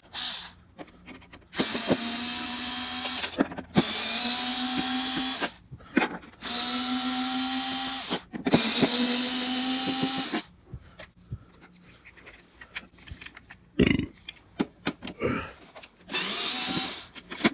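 Cordless power drill/driver spinning in short runs of a second or two, backing screws out of a vacuum cleaner's housing; four runs close together, then a pause with small clicks and handling, then one more run near the end.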